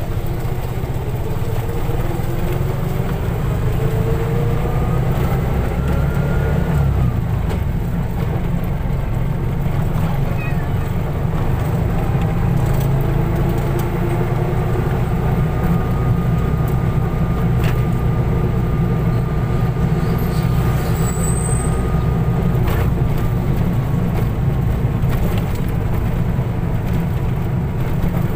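A car driving: a steady low rumble of engine and road noise, with the engine note rising over the first several seconds and then falling back.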